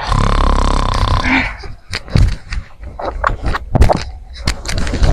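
A person snoring loudly: one long, rasping snore for about the first second, then a string of short, irregular snorts.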